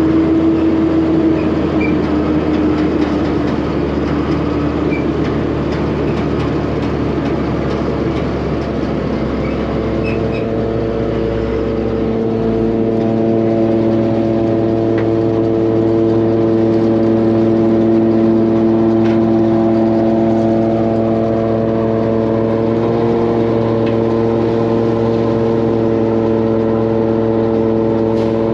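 Heavy engine running steadily under load, its pitch shifting a little about ten to twelve seconds in and then holding.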